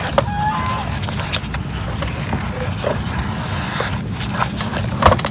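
A spatula stirring and scraping thick mung bean filling in a pan, with scattered clicks and knocks against the pan over a steady low hum.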